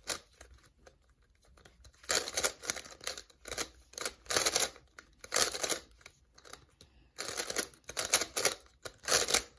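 GAN Skewb plastic twisty puzzle being turned by hand: short clacking turns, sparse for the first two seconds, then in quick bursts every half second or so.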